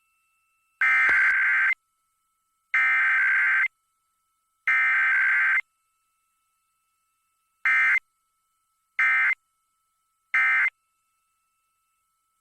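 Emergency Alert System SAME digital data bursts. The three header bursts of about a second each come a second apart, then about seven seconds in come three short end-of-message bursts. No attention tone comes between them, as in a Required Weekly Test.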